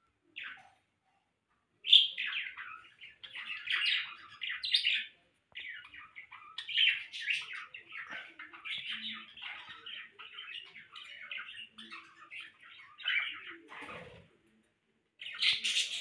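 Pet parrots, a cockatiel and a budgie, chirping and chattering in a fast, nearly unbroken run of short high notes. One chirp comes just after the start, the chatter begins about two seconds in, and it breaks off briefly near the end before another burst.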